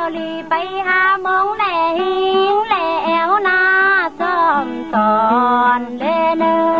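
Tai Lue khap folk music: a melody of held notes sliding from one pitch to the next, over a steady low drone.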